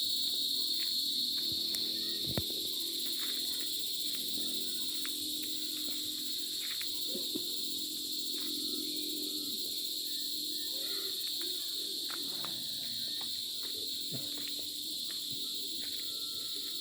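Steady high-pitched insect chorus, with scattered faint clicks and taps underneath.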